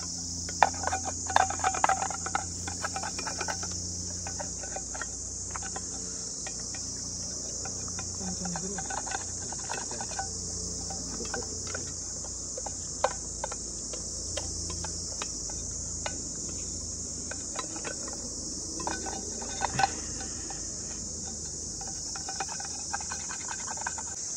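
A steady, high-pitched chorus of insects, with scattered light clinks and knocks, most of them in the first couple of seconds and again about 13 and 20 seconds in.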